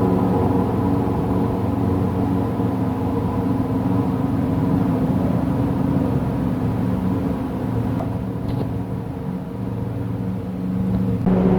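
A steady low drone made of several held tones, sounding like a distant engine such as a motor glider or lawn mower that does not stop. Its source is unidentified; the recordist thinks it may be high-voltage power lines.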